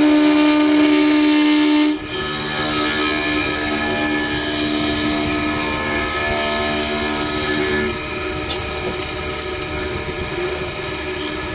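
CNC wood lathe turning a round wooden bar: a steady motor whine over the hiss of the cutter shaving wood. The whine drops in level and shifts lower in pitch about two seconds in, and stops about eight seconds in, leaving the cutting noise.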